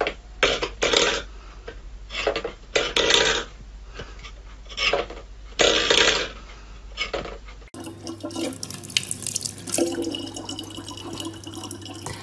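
Stainless steel bowl pawed by a cat, scraping and clattering on a wooden floor in about six separate strokes. From about eight seconds in, a tap runs a thin steady stream of water into a plastic bottle.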